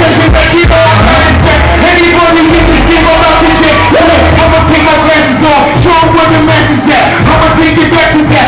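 Hip-hop beat with heavy bass played loud through a club PA, with a man rapping a freestyle over it into a microphone.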